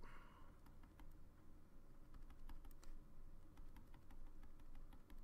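Faint, light, irregular tapping clicks, several a second, from a stylus on a drawing tablet as a dotted outline is drawn.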